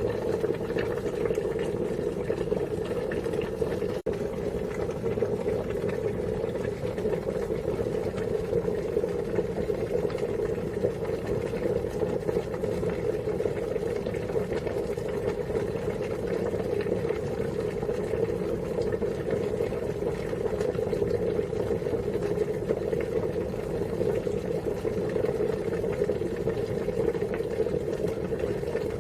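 Water boiling steadily, a continuous bubbling rush.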